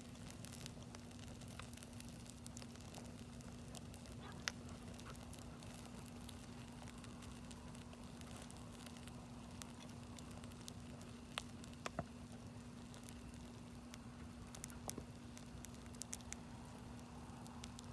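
Wood campfire crackling, with irregular sharp pops scattered over a soft steady hiss. The loudest pop comes about a quarter of the way in, and there is a quick run of pops around two-thirds through. A steady low hum runs underneath.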